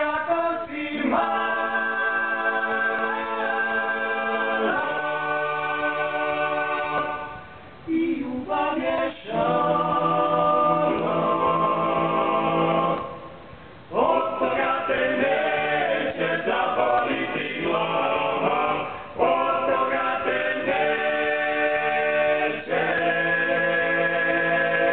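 Male vocal ensemble singing a cappella in close harmony, holding sustained chords in phrases of a few seconds, each broken by a brief pause.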